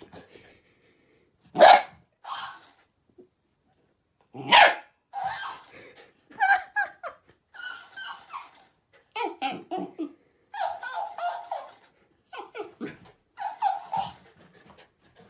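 A dog barking at a talking plush hamster toy, with two loud sharp barks in the first five seconds followed by a quick run of shorter barks and yips. The toy plays each sound back in a squeaky, sped-up voice.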